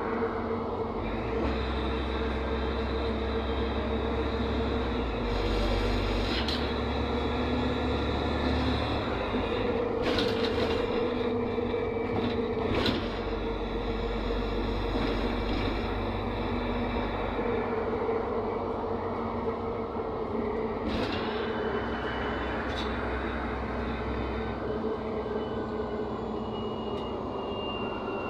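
Inside a NefAZ 5299 city bus on the move: the steady drone of its Cummins ISBe diesel engine and drivetrain mixed with road noise, with a few sharp rattling knocks from the body now and then.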